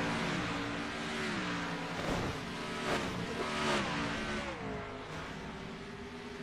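Race car engine with its revs falling in several stepped drops, with brief loud blips between the drops, then settling to a steadier lower note near the end.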